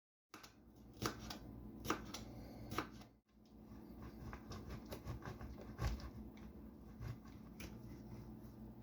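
Kitchen handling noises: a string of light clicks and knocks of utensils and containers being moved about on a work surface, over a low steady hum.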